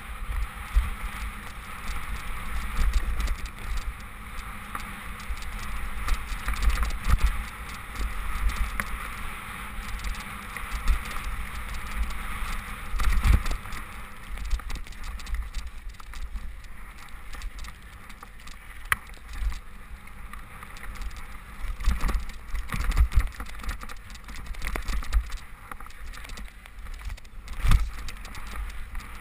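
Wind buffeting the camera microphone over the rattle and clatter of a Specialized Demo 8 I downhill mountain bike running down a wet, muddy trail, with several heavier knocks from the bike hitting bumps.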